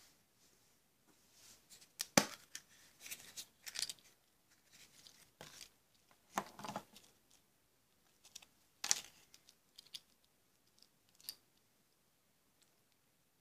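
Small plastic toy figure and its parts clicking and rustling in the fingers as they are handled and fitted together: scattered sharp clicks, the loudest about two seconds in, with short rustles between.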